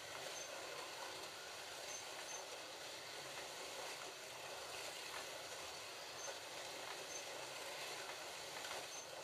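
Several Slot.it GT40 slot cars lapping the track together just after a race start: a steady whir of their small electric motors and of the cars running in the track's slots.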